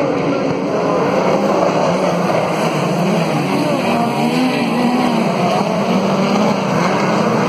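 A pack of open-wheel dirt-track race cars running together around the oval, their engines overlapping with pitches rising and falling as they accelerate and lift through the turns.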